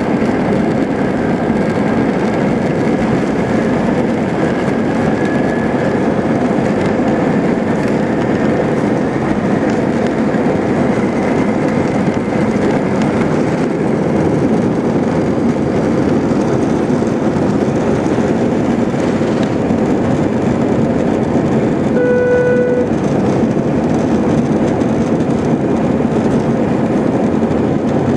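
Airbus A320-family airliner's jet engines at takeoff thrust, heard inside the cabin during the takeoff roll and climb-out: a loud steady roar with a whine that rises over the first few seconds. A short single tone sounds once, about three quarters of the way through.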